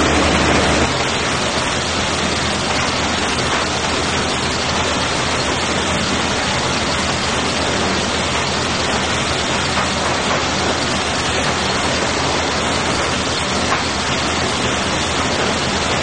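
Sawmill lumber sorter system and its chain conveyors running: a steady, even noise spread from low to high, with no clear rhythm. A low hum stops about a second in.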